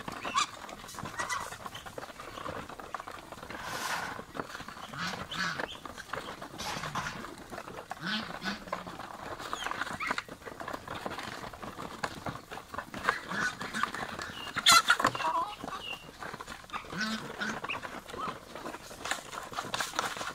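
A mixed flock of Muscovy ducks, chickens and domestic geese feeding from a shallow grain tray: a steady patter of quick pecking clicks with scattered clucks and short calls.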